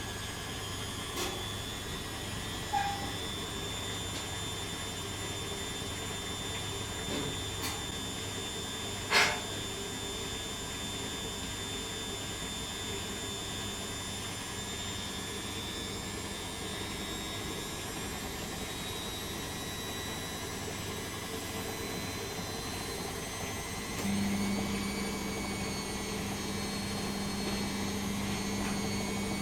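Beko WM6255W washing machine running mid-cycle with a steady hum, a few faint clicks and one sharper knock about nine seconds in. Near the end a new, somewhat louder steady hum sets in.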